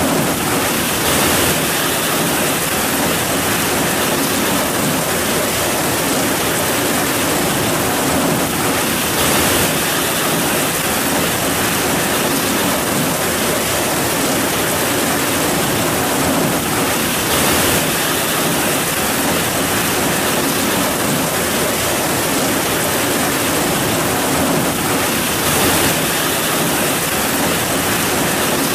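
Heavy rain falling in a steady, loud hiss, swelling briefly now and then.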